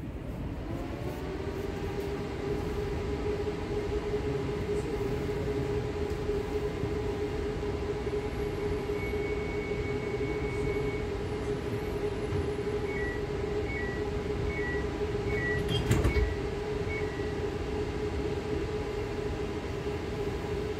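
ES2G Lastochka electric train heard from inside the car: the traction motors' whine climbs in pitch over the first couple of seconds as the train picks up speed, then holds a steady hum over the rumble of the wheels on the track. A single loud knock comes about three-quarters of the way through.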